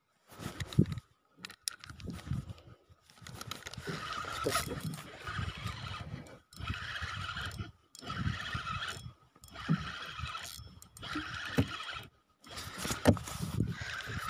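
Wind buffeting the microphone on an open boat at sea, with rubbing and knocks as clothing brushes against the phone near the end.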